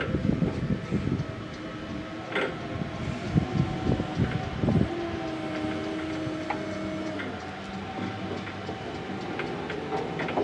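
Jungheinrich ETV 216 electric reach truck in operation: irregular rattling and knocking through the first half, then a steady electric motor whine for about two seconds, and a sharp knock right at the end.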